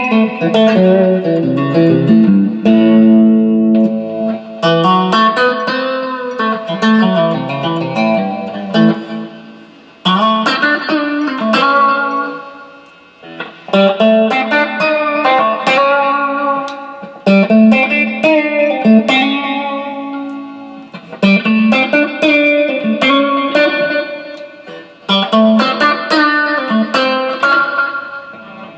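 1965 Fender Mustang electric guitar played through an amp over a looped chord vamp, with its two single-coil pickups switched between settings to show their tones. Chords ring and fade in phrases that recur every few seconds.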